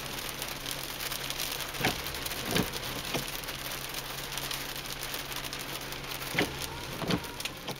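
Small hail and rain pattering, a dense crackle of tiny hits, with a few louder single knocks about two seconds in and again near the end.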